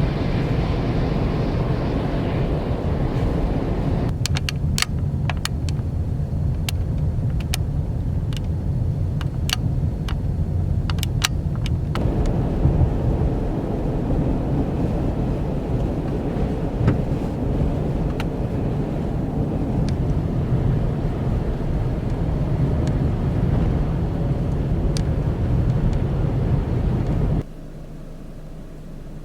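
Strong blizzard wind buffeting the microphone, a heavy gusting rumble with sharp ticks scattered through the first half. It drops off abruptly near the end.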